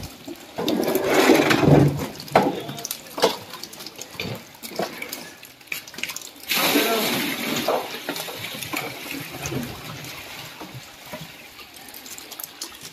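Wet slapping and splashing of live hybrid magur catfish being handled on a wet plastic sheet and tossed into a bamboo basket, with many short splats. A louder rush of water comes in about six and a half seconds in.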